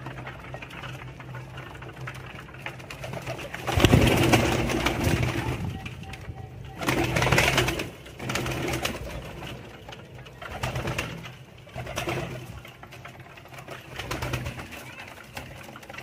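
A flock of fancy pigeons cooing while they feed, in repeated swells every couple of seconds, with two louder bursts of activity, the loudest about four seconds in and another about seven seconds in.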